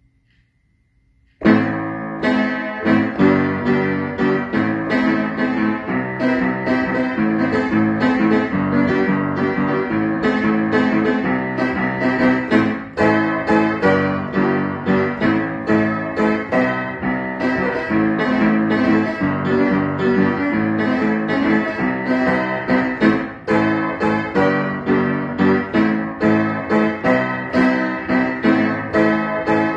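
Upright acoustic piano played continuously, a dense stream of chords and melody notes, starting about a second and a half in after a short silence.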